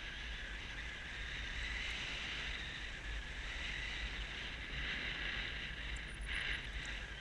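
Steady rush of airflow over a GoPro's microphone on a paraglider in flight: a low buffeting rumble under a constant hiss.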